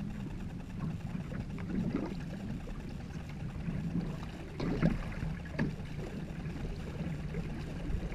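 Single-blade paddles pulling through lake water from a two-person racing canoe, with splashes and drips at the strokes, the loudest about five seconds in, over a steady low hum.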